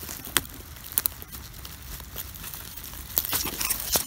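Dry leaves, twigs and pine needles of forest litter crackling and rustling under a hand working close to the microphone, with scattered sharp clicks and snaps.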